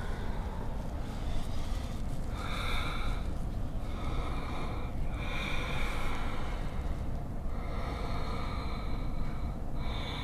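A person's slow, audible breathing: several drawn-out breaths of a second or two each, heard while holding a yoga pose, over a steady low background hum.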